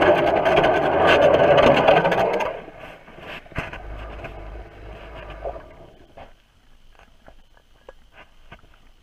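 Motorized ice auger running, heard from under the ice through the water; it stops about two and a half seconds in. After it come faint scattered clicks and knocks.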